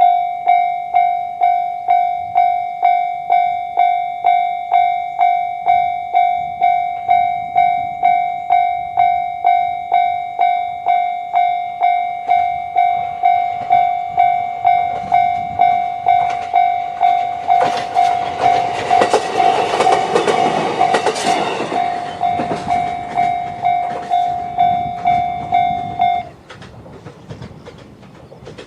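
Japanese level-crossing alarm giving the JR standard electronic bell tone, struck about twice a second. An E129-series train rattles over the crossing from about 17 to 22 seconds in, and the alarm cuts off suddenly a few seconds later.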